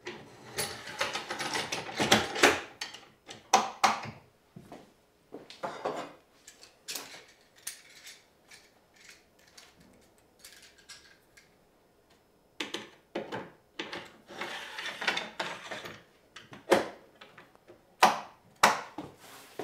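Festool aluminium guide rail being slid and nudged across a wooden board as it is lined up: irregular scraping with sharp clicks and knocks.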